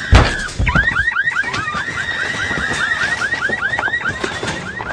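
A heavy thump on a car, then its car alarm going off with a fast run of rising electronic chirps, about four a second.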